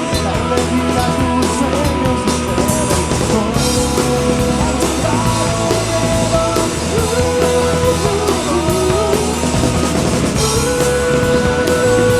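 Rock band playing an instrumental passage: drum kit under sustained chords, with a lead melody that bends and wavers in pitch. A held higher note comes in near the end.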